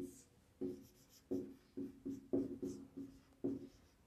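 Whiteboard marker writing on a whiteboard: a quick run of short, squeaky strokes with brief pauses between letters.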